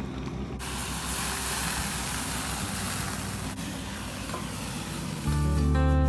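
Food sizzling as it fries in hot oil: a steady hiss that starts abruptly about half a second in, over quiet background music. The music grows much louder near the end.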